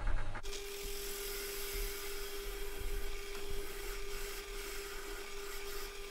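Bench drill press with a Forstner bit boring into MDF. From about half a second in, the motor runs with a steady hum under a rough cutting and grinding noise as chips are thrown out.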